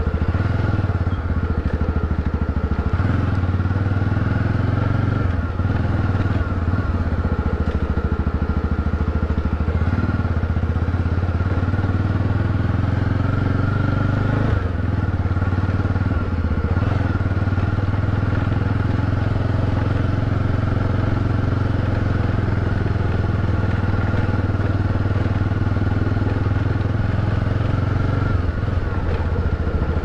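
Motorcycle engine running steadily while riding, its note dropping and picking up again a few times: about three seconds in, around the middle, and near the end.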